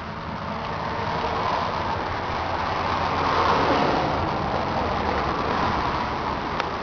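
John Deere 750 compact tractor's diesel engine running steadily. The noise swells louder around the middle, and there is a sharp click near the end.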